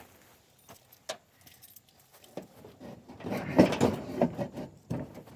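Metal hand tools clinking and rattling against the riding mower's blade fittings while the blade nuts are worked loose: a few separate clinks, then a burst of rattling clanks about three seconds in and a knock near the end.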